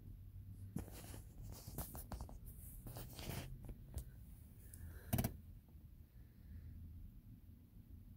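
Faint scratching and rustling inside a car cabin, with one sharp click about five seconds in, over a low steady hum.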